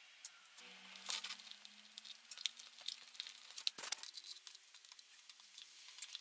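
Quiet, irregular clicks, taps and light scraping from small objects being handled, with a sharper knock near the middle and a faint steady hum during the first half.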